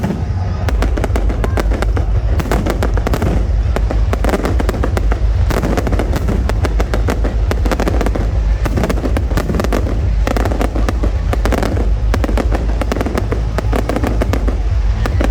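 Fireworks display: a continuous barrage of bangs and crackles, many a second, over a heavy low rumble.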